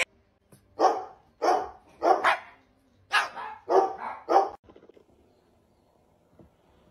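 Dog barking: a run of about eight short, sharp barks, some in quick pairs, over about four seconds, then stopping.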